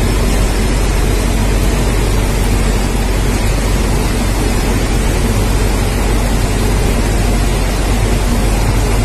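Heavy rain pouring down, a steady loud hiss, with a low rumble underneath from a locomotive and coach rolling slowly past on the yard tracks.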